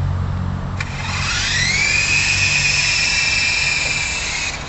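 Syma remote-control toy helicopter's electric motor and rotors spooling up: a rising whine after a click about a second in, then a steady high whine that cuts off suddenly near the end.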